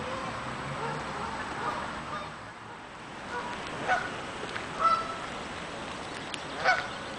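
Canada goose honking: three short honks in the second half, over a steady background hiss.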